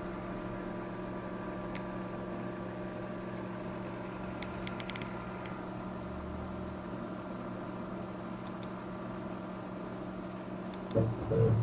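Small CNC machine's motor humming steadily, with a few faint ticks.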